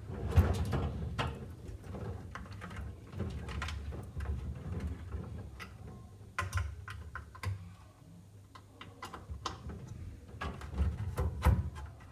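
Irregular clicks and knocks of hands working on a DVR's metal case and its hard-drive screws, with the sharpest knocks about half a second in and again near the end.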